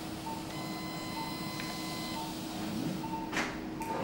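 Operating-room equipment: a steady hum with a short beep about once a second, a higher steady tone held for a second or two, and a brief rustle near the end.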